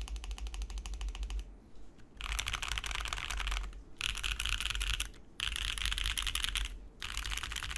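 Fast typing on a Neo Ergo mechanical keyboard with Gateron Pureberry switches: dense runs of key clicks in bursts of one to two seconds, broken by brief pauses, the longest about a second and a half in.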